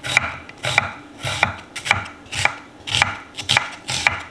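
Kitchen knife chopping onion on a cutting board, in even strokes about two a second.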